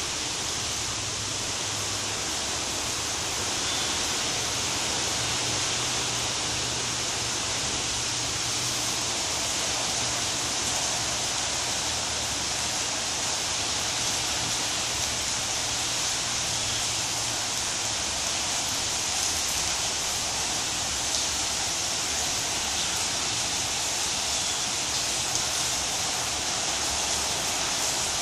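Steady, even hiss, with a faint low hum through roughly the first two-thirds.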